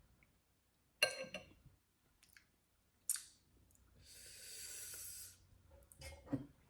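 Close-miked mouth sounds of eating sour lime: a wet smack about a second in, a sharp click near three seconds, then a hissing suck of air through the mouth lasting about a second and a half.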